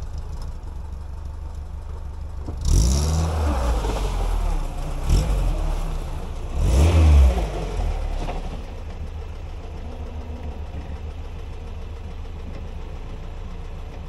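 Lada Niva VAZ-21213's 1.7-litre four-cylinder petrol engine idling, then revved hard about three seconds in and again, loudest, about seven seconds in, as the car rocks forward and backs out of a rut; it then drops back to a steady idle.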